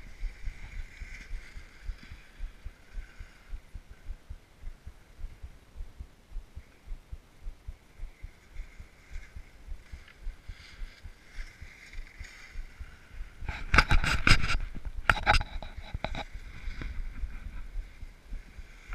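Wind buffeting a GoPro's microphone on an open snow slope, a gusty low rumble. Two loud, short bursts of noise come about three-quarters of the way through.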